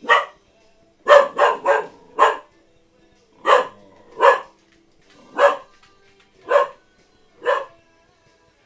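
Dog barking: about ten short, sharp barks, the first few in a quick run and the rest spaced about a second apart.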